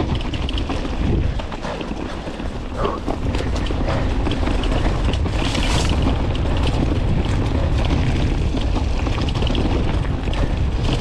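Mountain bike descending a dry dirt trail: wind buffeting the microphone over tyre rumble, with many rattling clicks from the bike and a brief hiss a little past halfway.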